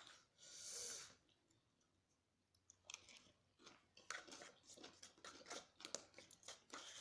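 Close-up chewing of crispy spicy fried chicken, with a run of short crunching bites through the second half. A breathy puff of air comes out about half a second in, while the mouth burns from the spice.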